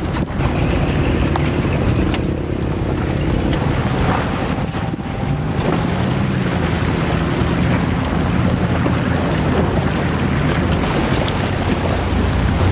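An SUV's engine running as the vehicle drives through a shallow stream, its pitch rising and falling a few times about halfway through, over the steady rush and splash of water churned up beside the vehicle.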